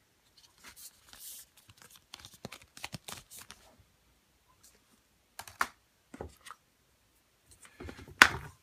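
Hands handling the Apple Watch's boxes and packaging: scattered light scrapes, rustles and clicks, with a sharper click or knock near the end.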